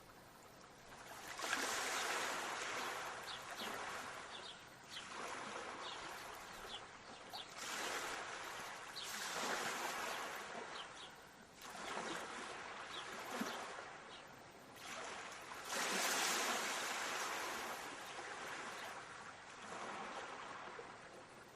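Sea waves washing onto the shore, a hiss that swells and fades every few seconds, loudest about two seconds in and again around sixteen seconds. Faint short high chirps sound now and then over the surf.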